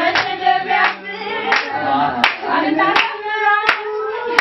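A group of voices singing together, with hand claps keeping a steady beat about once every 0.7 seconds.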